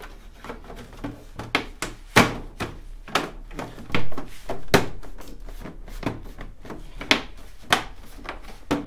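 Irregular clicks and knocks of a plastic scooter body panel being handled and pushed into place, with a few louder knocks along the way.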